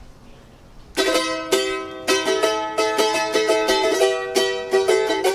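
A small acoustic plucked string instrument comes in about a second in, playing a quick run of picked notes, several a second.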